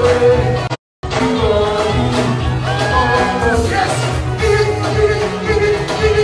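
Loud music with singing, as played for dancing; the sound drops out to silence for a split second about a second in, then the music carries on.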